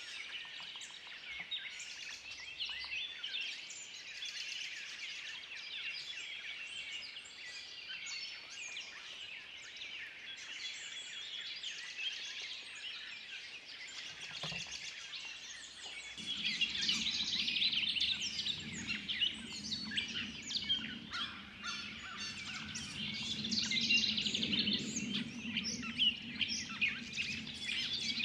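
A dense chorus of woodland songbirds, many chirps and songs overlapping continuously. About halfway through, a steady low hum comes in beneath them and lasts to the end.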